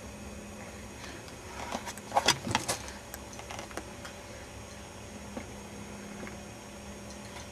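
A plastic baby toy rattling and clacking in a short burst about two seconds in, followed by a few softer clicks, over a steady low room hum.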